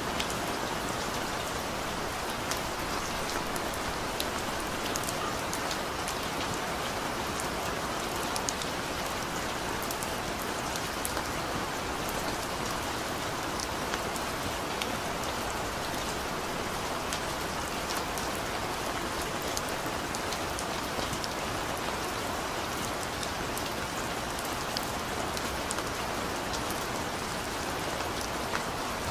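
Steady rain falling: a dense, even hiss of rain on surfaces, dotted with many small, sharp ticks of individual drops.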